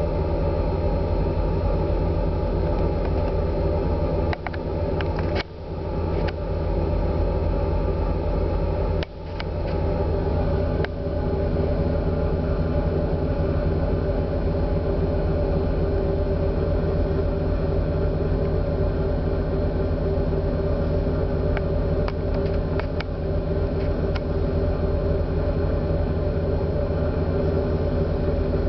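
Cruise ferry's engines running, heard inside a passenger cabin as a steady low drone made of several even tones. A few brief clicks and short dips come about four to eleven seconds in, and again past twenty seconds.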